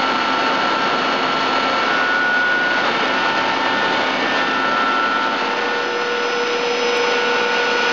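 Steady whirring hum of machinery running in a machine shop, an even noise with a few faint, constant whining tones over it.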